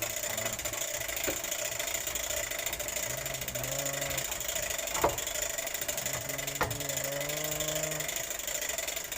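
Steady machinery hum of a building site, with two sharp knocks about five and six and a half seconds in and faint voices in the background.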